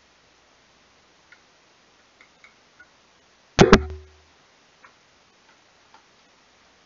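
Two quick knocks close to the microphone a little past halfway, with a low thump that dies away within about half a second. A few faint small clicks come before and after.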